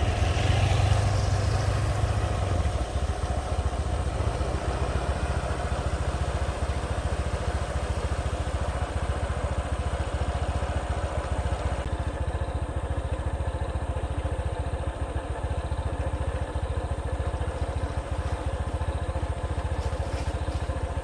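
A vehicle engine running steadily at a low, even pace.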